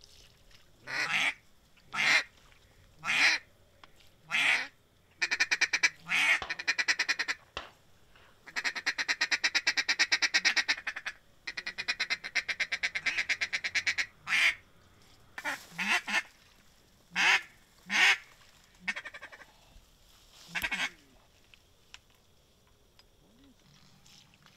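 Duck quacking: loud single quacks about a second apart, broken by long runs of rapid chattering in the middle, then more single quacks that stop a few seconds before the end.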